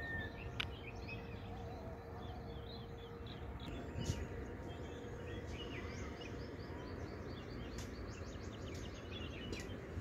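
Small birds chirping and twittering in short repeated calls over steady outdoor background noise, with two sharp clicks about half a second and four seconds in.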